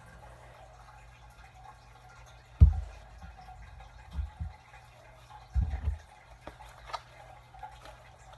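Slime being squished and poked by hand: a few separate wet squelches and soft pops with low thuds, the biggest about two and a half seconds in, then small sticky clicks.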